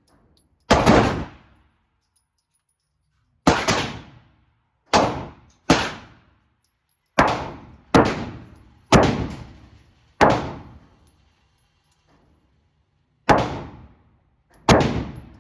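Glock pistol fired shot by shot, about ten loud shots at an uneven pace, some in quick pairs and some with pauses of a few seconds, each shot ringing out briefly.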